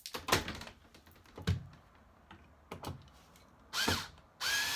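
A few light knocks and clicks of handling, then a power drill spinning up briefly about four seconds in and starting again to run steadily near the end, driving a screw to mount a storm door closer bracket on the door frame.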